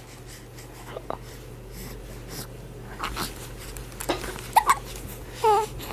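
Two-month-old baby with the hiccups: a few short, sharp hiccups spread out, and near the end two brief high-pitched squeaky vocal sounds.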